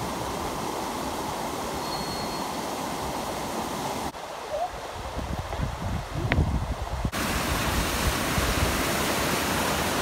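Rushing river water tumbling over rocks in rapids, a steady hiss. About four seconds in it drops to quieter water with irregular low rumbles and knocks, and about seven seconds in the steady rushing returns, a little louder.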